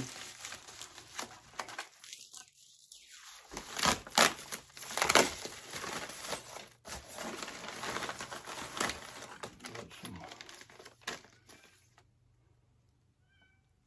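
Plastic packaging crinkling and rustling as a bag of welder consumables is handled and opened, with irregular crackles and a couple of sharper rustles about four and five seconds in, then quiet near the end.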